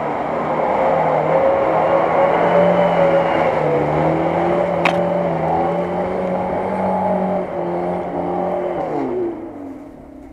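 Lada Niva's engine revving hard under load while driving through deep mud, its pitch wavering and stepping with the throttle, then dropping away and fading near the end. One sharp click about halfway through.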